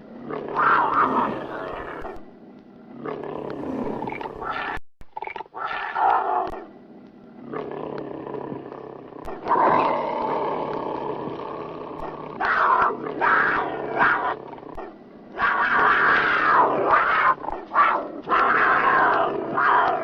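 Tigers roaring and growling in a run of loud, rough bursts with short gaps between them.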